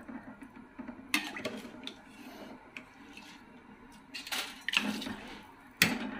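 Soaked rice being tipped from a metal bowl into a large metal pot of boiling water, with splashing and the bowl clattering against the pot several times, once about a second in and a few times near the end.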